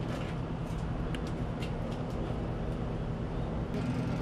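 Steady low engine rumble from vehicles running, with a few light clicks and knocks. Near the end the background changes abruptly to a different steady engine hum.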